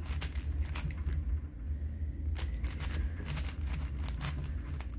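A Qiyi Wuque 4x4 speedcube being turned quickly during a solve: rapid, irregular plastic clicks and clacks as its layers snap round. The cube is new and still breaking in.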